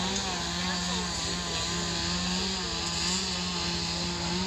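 Chainsaw running steadily at high revs while carving wood, its higher tones wavering slightly as it cuts.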